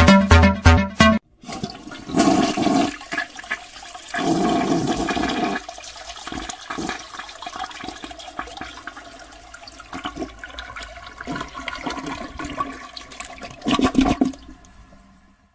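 A toilet flushing, with rushing, gurgling water running for about thirteen seconds in uneven surges before it fades out near the end. A short burst of music plays first and cuts off about a second in.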